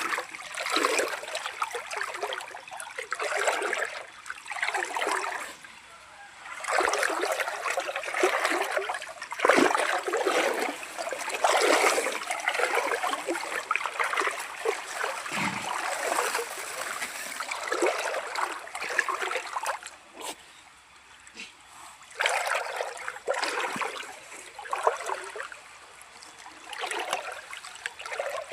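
Shallow river water splashing and trickling in irregular bursts with short lulls, as an otter moves about in it hunting for food.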